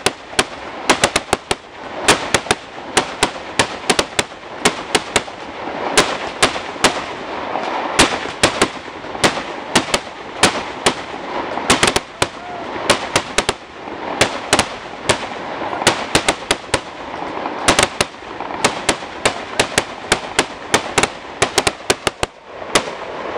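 Consumer aerial fireworks going off in a rapid salvo: sharp bangs several a second over a continuous crackling hiss, stopping shortly before the end.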